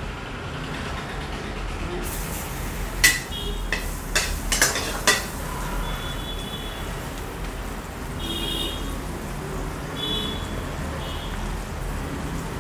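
Butter sizzling as it melts in a wide aluminium pan over a gas flame. The sizzle starts about two seconds in, with a few sharp clicks of a metal spoon against the pan as more butter goes in.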